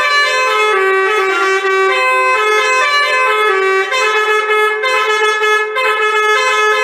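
Basuri telolet horn, the Indonesian multi-tone bus horn, playing a tune: a string of loud held notes stepping up and down between a few pitches, with no break between them.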